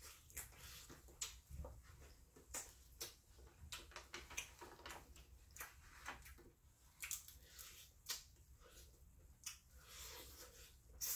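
Wet mouth smacks and sucking sounds of someone eating seafood boil by hand, coming as short irregular clicks.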